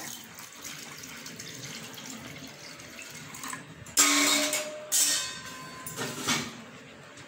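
Water poured from a steel vessel into a metal pot of raw dal: a steady, quieter trickling splash, with louder gushes of pouring about four, five and six seconds in.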